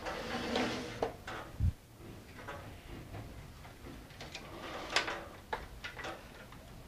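Handling noises as a toothed carriage belt is fed through the plastic carriage of an HP Designjet plotter: rustling and rubbing of the belt against the plastic, a low thump a little under two seconds in, and a few sharp plastic clicks later on.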